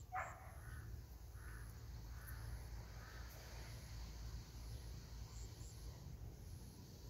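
Faint animal calls: one falling call just at the start, then a few short calls over the next couple of seconds, over a steady low rumble.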